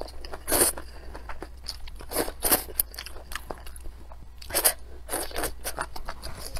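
Close-miked eating of noodles with spicy and sour chicken offal: wet chewing and mouth smacks, with a few louder slurps of noodles.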